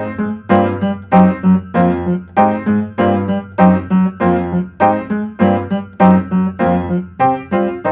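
Piano-voiced electronic keyboard music: chords struck about twice a second, each fading, over a held low bass note.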